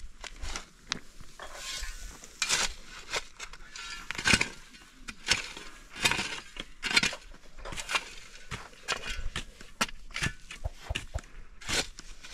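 Irregular scraping and knocking strokes, roughly one or two a second, from hand work with stone and soil.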